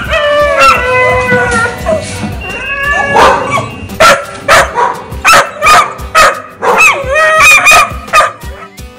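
Young dog whining with long, slightly falling cries, then barking over and over in short, sharp, high barks from about three seconds in, with whines between the barks.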